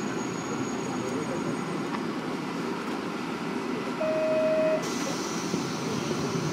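JR Kyushu KiHa 47 diesel railcar with its replacement Komatsu diesel engine idling steadily while standing at a platform. About four seconds in a short steady beep sounds for under a second, followed by a hiss.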